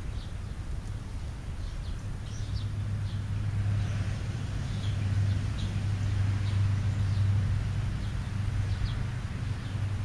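A low, steady engine hum swells through the middle and eases off near the end. Brief, faint, high chirps of small birds are scattered over it.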